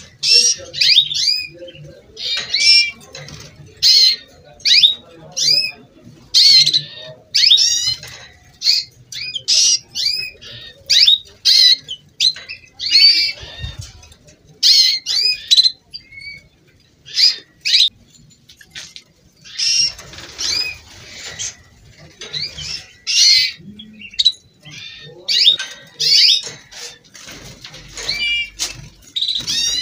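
Domestic canaries singing: many short phrases of rapid, sweeping high notes and trills, one after another with brief pauses.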